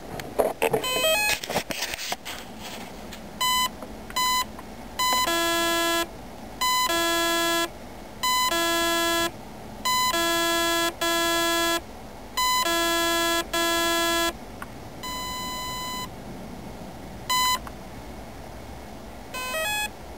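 Clattering handling noise as the battery connector is plugged back in, then an ETTI ESC's programming tones: a few short high beeps, then a run of longer beeps carrying a low bass tone, some in pairs, then a longer softer tone and single short beeps near the end. The tones step through the ESC's menu as it is set for a 2S LiPo cutoff.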